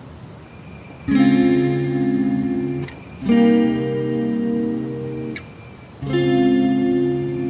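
Lo-fi background music: three guitar chords, each held about two seconds, with short quiet gaps between them.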